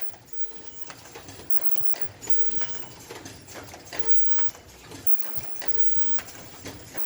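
Mask-making machine running: rapid, uneven clacking of its mechanism, with a short tone repeating about every one and a half to two seconds.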